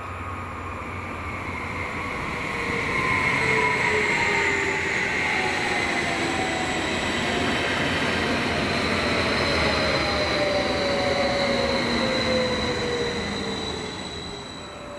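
BLS MUTZ (RABe 515) double-deck electric multiple unit running through the station: a rising rush of wheel and rolling noise that holds as it goes past, then fades near the end. Several whining tones slide down in pitch as it passes.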